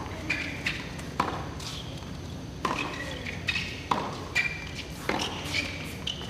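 Tennis rally: the ball struck back and forth by racquets about every 1.3 seconds, with shoes squeaking on the hard court between shots.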